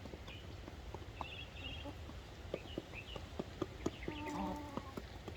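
Chickens calling: short high chirps scattered throughout, and one short drawn-out call about four seconds in, amid many light taps.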